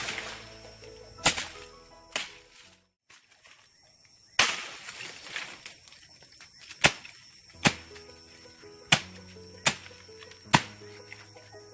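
Machete blows chopping into the base of a spiny palm clump to cut loose its fruit bunches: about nine sharp chops spaced roughly a second apart. The one about four seconds in is the heaviest and is followed by a brief rustle of leaves.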